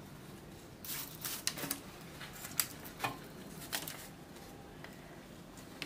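Faint, scattered rustles and light taps: crisp baked meringues being lifted off a baking sheet and set down on a plastic serving tray.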